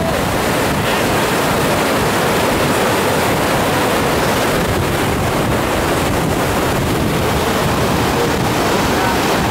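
Fast, muddy river water rushing and churning over and around a jam of driftwood logs: a steady, loud wash of water noise.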